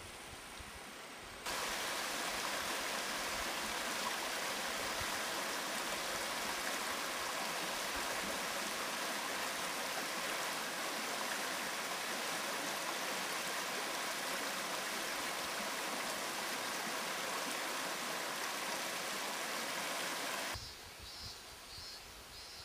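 Shallow stream running over stones and gravel, a steady rush of water. It starts suddenly a second or so in and stops suddenly near the end.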